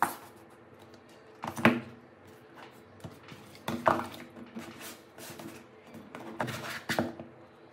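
A few sharp knocks and clicks spaced a second or two apart, with a faint steady hum underneath.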